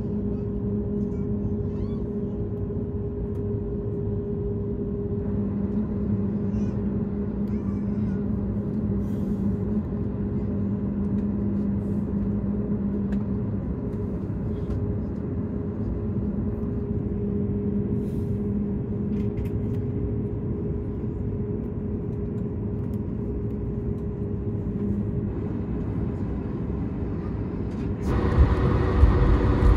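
Steady hum inside an Airbus A220-300's cabin while the jet stands being de-iced, with a low rumble under two held droning tones. About two seconds before the end it turns abruptly louder, with a deeper rumble and more hiss.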